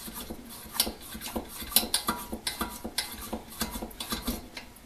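Metal parts of an antique blowtorch and its pump being handled: irregular small metallic clicks and clinks that die away near the end.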